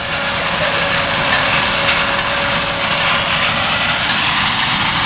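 Corn harvester working in the field, its engine and machinery running with a steady drone.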